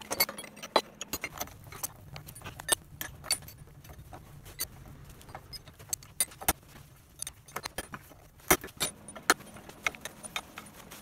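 Irregular metallic clicks and clinks of outboard-motor engine parts handled by hand: the crankshaft and crankcase of a dismantled LMM-6 engine knocking against each other and against tools.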